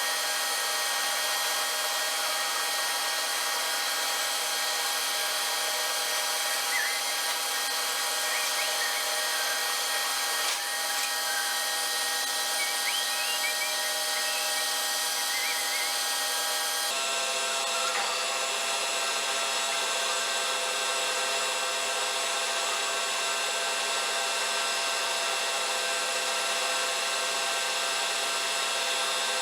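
Machine tool running steadily, a constant multi-tone whine with faint scraping and chirping from cutting metal. The tones shift abruptly to a new set about seventeen seconds in.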